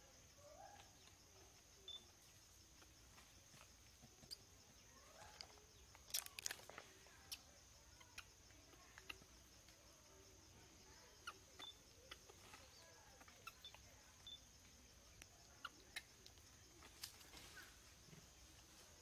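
Near silence: faint outdoor ambience with a steady high-pitched drone, scattered soft clicks and a few faint chirps, the loudest cluster of clicks about six seconds in.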